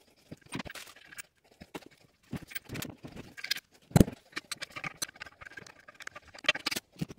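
Irregular clicks, clunks and knocks of toilet tank parts and tools being handled, with one sharp, loud knock about four seconds in.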